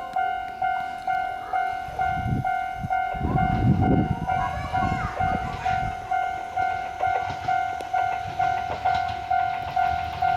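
Japanese level-crossing warning bell ringing steadily at about two dings a second, while a train rumbles through the crossing, loudest a few seconds in, followed by the clacking of its wheels over the rails.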